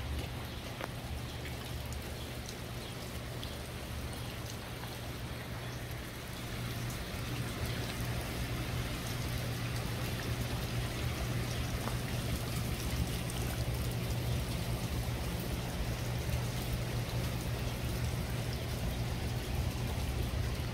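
Pond fountain water splashing and trickling steadily into a koi pond, growing louder about seven seconds in, with a low steady hum underneath.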